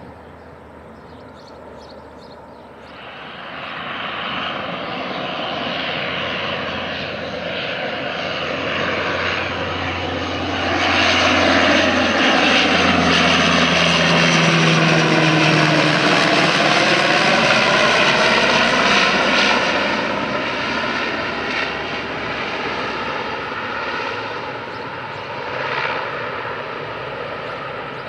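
Dash 8 twin-turboprop airliner flying low overhead with its landing gear down. The engine and propeller drone grows louder, falls in pitch as the aircraft passes, then eases off as it moves away.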